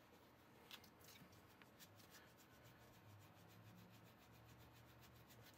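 Faint rubbing of hands rolling pretzel dough and brushing flour across a wooden cutting board, with one light tap about a second in.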